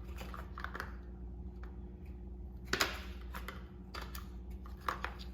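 Small plastic parts of a vlogging kit being handled, with scattered light clicks, the sharpest about three seconds in, over a steady low hum.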